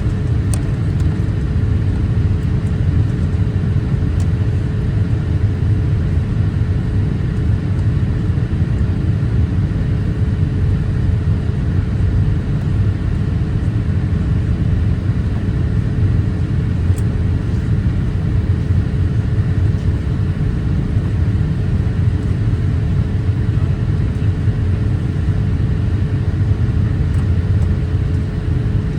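Steady cabin noise inside a Boeing 787-8 airliner in flight: a deep, even rumble of airflow and engines with a faint constant hum above it.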